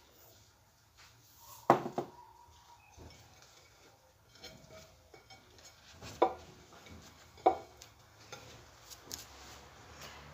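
A ceramic plate clinking against a tiled tabletop, three louder knocks about two, six and seven and a half seconds in, the first ringing briefly, with fainter taps between.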